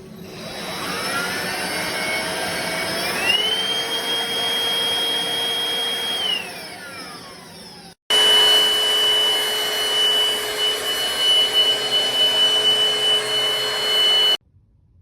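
Black+Decker POWERSERIES+ 20V MAX cordless stick vacuum running. Its motor whine spins up, jumps higher in pitch about three seconds in, and winds down. After a cut it runs again at a steady high whine and stops abruptly near the end.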